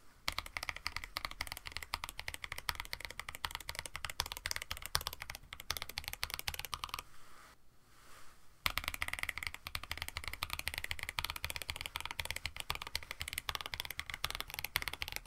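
Fast typing on a KBD67 Lite mechanical keyboard with an FR4 plate, fitted with Moyu EMT v2 or Betty switches: a dense run of key clacks. The typing pauses for about a second and a half a little past halfway, then resumes.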